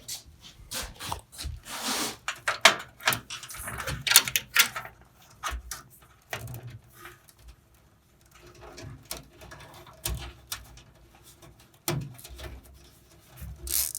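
Hands working on a desktop computer case during reassembly: irregular clicks, knocks and scraping rustles of wiring and metal parts, with a quieter pause about halfway through.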